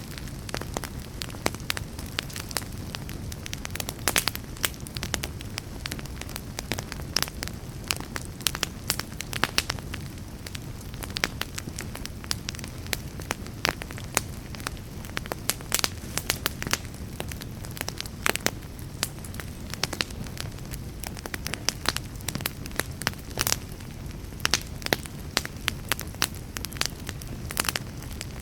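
Wood fire burning in a fireplace: a steady low rush of flames with many irregular sharp crackles and pops from the burning logs.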